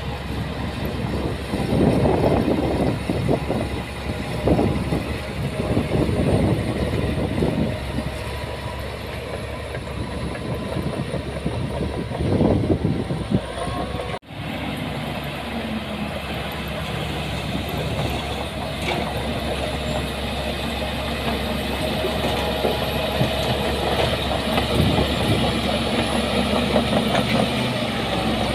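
Diesel engine of heavy earthmoving machinery running, with irregular heavy surges and clatter in the first half. About halfway through there is an abrupt cut to a steadier engine sound.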